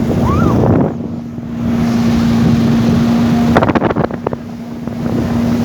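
Motorboat engine running steadily, with wind buffeting the microphone. A brief run of sharp knocks comes about three and a half seconds in.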